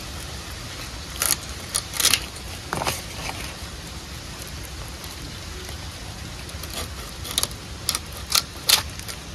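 Sharp clicks and knocks, a handful about a second in and another handful near the end, from fish being scaled and cut with a blade.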